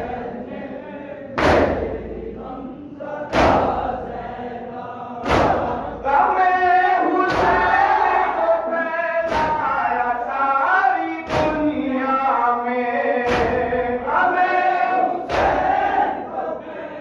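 A group of mourners beating their chests in unison (matam), with one loud, sharp slap about every two seconds. From about six seconds in, men's voices chant a mourning lament over the beats.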